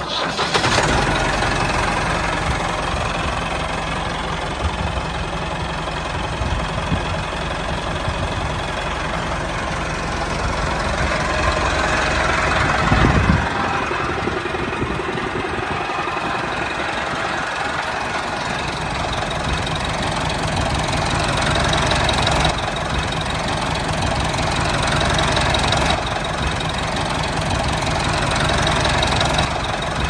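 Tractor engine running steadily with a knocking, diesel-like chug; it briefly gets louder about 13 seconds in.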